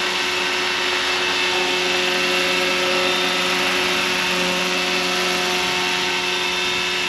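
Roban 600-size Hughes MD500 scale RC helicopter hovering with its main rotor head at about 1400 RPM: a steady whine of drivetrain and rotor with several fixed tones, holding an even pitch. The main blades have just been tightened in their grips, and the wobble is no longer showing.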